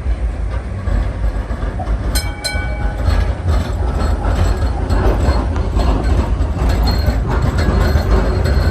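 Vintage electric tram running on its track: a heavy low rumble that grows louder, with two short ringing tones about two seconds in and scattered wheel clicks over the rails.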